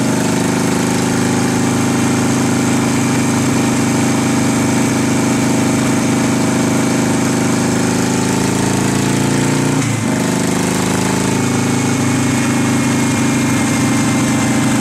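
Harley-Davidson V-twin motorcycle engine running under load on a chassis dyno at about 3,000 rpm, its pitch climbing slowly. About ten seconds in it shifts up from fourth to fifth gear: the pitch drops sharply, then starts climbing again.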